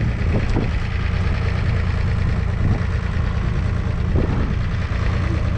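A 1974 Ford 3000's 2.9-litre three-cylinder diesel engine idling steadily.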